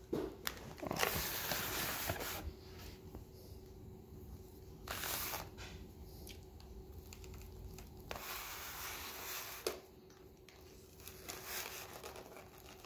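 Plastic and cardboard toy-doll packaging rustling and crinkling in irregular bursts, with a few small clicks, as the doll is cut free of the ties holding it in its box.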